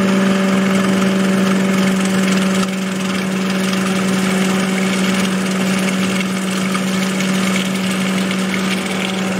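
Food processor motor running steadily with an even hum, its blade mixing the egg yolk, garlic and mustard into aioli while olive oil is drizzled in through the feed tube.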